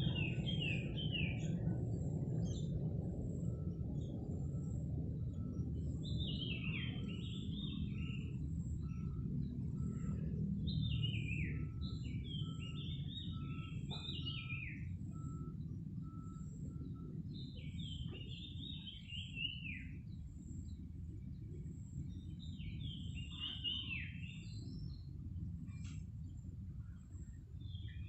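A bird singing short phrases of quick chirping notes, repeated every four to six seconds, over a steady low rumble of background noise.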